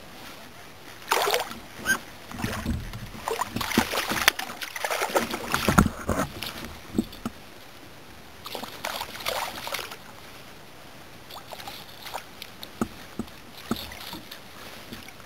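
Water splashing and sloshing beside a kayak as a hand reaches into it, in irregular bursts through the first six seconds and again around nine seconds, followed by scattered small knocks and clicks.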